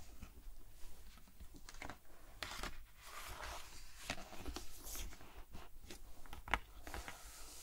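A page of a hardcover picture book being turned, the paper rustling about two and a half seconds in, followed by light taps and brushing of fingernails on the glossy page.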